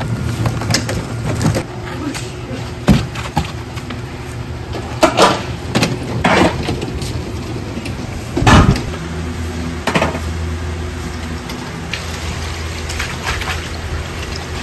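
Stainless steel stock pots knocking and clanking as they are handled and set down, a few separate strikes with the loudest about eight and a half seconds in, over a steady low hum.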